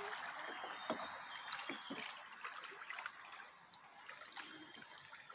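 Kayak paddling on a slow river: faint water trickling and dripping, with a few small splashes as paddle blades dip in and come out.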